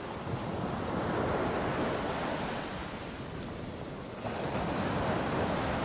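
Ocean surf washing steadily, with wind noise, growing a little louder about four seconds in.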